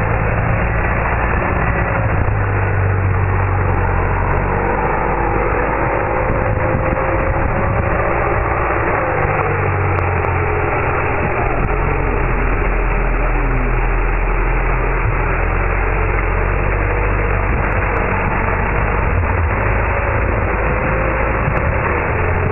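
UAZ 4x4 engine running steadily, with a faint whine that slowly wavers in pitch.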